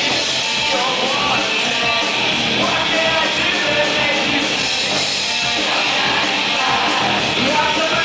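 Live rock band playing loud: a male singer singing into the microphone over electric bass, electric guitar and drums.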